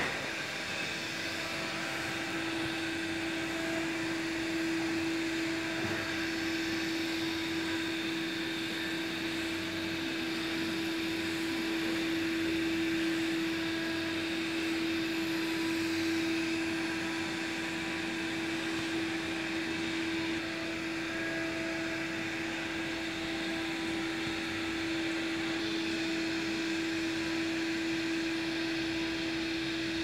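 Samsung robot vacuum cleaner running as it travels across a tabletop: a steady motor and fan hum with one constant-pitched whine, starting about half a second in.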